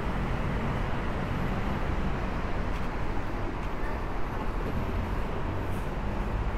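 Steady rumble and hiss of city road traffic, with no distinct events.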